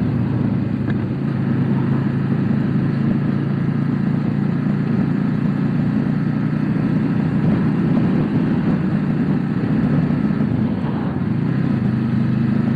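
Motorcycle engine running at a steady pitch while riding at a constant speed, with an even rushing noise behind it.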